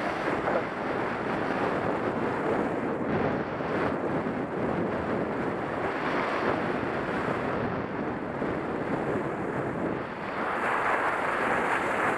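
Wind rushing over the microphone of a head-mounted camera while skiing downhill, mixed with skis hissing over soft spring snow. The noise is steady and grows a little louder near the end.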